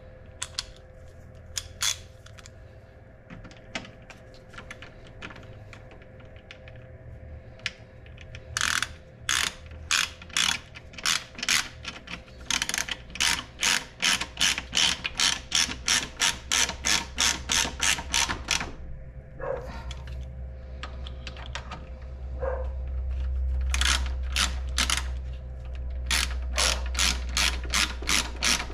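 Hand ratchet clicking as screws are tightened down: scattered clicks at first, then steady runs of about three to four clicks a second from about eight seconds in, with a short break before it picks up again near the end.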